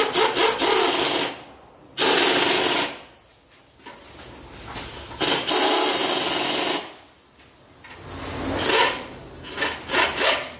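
Air-powered wrench on an exhaust flange, running the 17 mm nuts down onto the spring bolts that hold the pipe joint together. It runs in repeated bursts of about a second each, with a quick stuttering run at the start and short bursts near the end.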